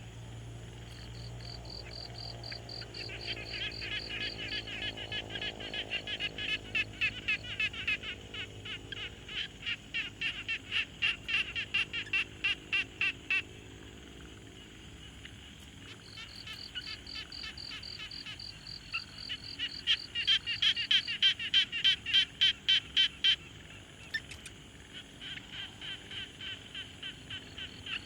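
Pond frogs calling in a chorus. Two long bouts of rapid pulsed croaks, about two to three a second, build up and stop suddenly, and a third bout begins near the end. A steady high-pitched buzz runs underneath.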